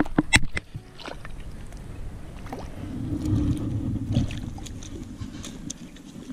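A hooked redfin (European perch) splashing at the surface at the water's edge, with several sharp splashes in the first second, followed by a low rumbling handling noise as the fish is drawn out of the water onto the bank.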